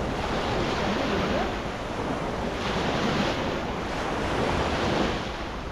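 Wind buffeting the microphone with a steady rush of water, an even noise with no distinct events.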